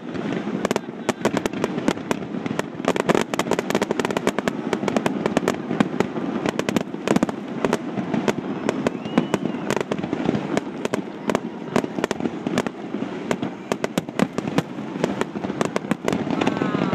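Fireworks finale: aerial shells bursting in a rapid, continuous string of sharp bangs, several a second and often overlapping, over a steady rumble of their echoes.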